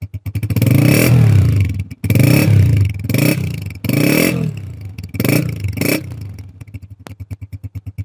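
Honda CG125's single-cylinder four-stroke engine, with a freshly refitted silencer, idling and then blipped up about six times before settling back to an even idle near the end: a perfectly smooth sound.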